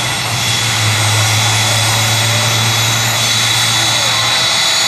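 UH-60 Black Hawk helicopter's turbines running at idle on the ground, a loud steady high-pitched whine over a rushing hiss, with a low steady hum from about a second in until shortly before the end.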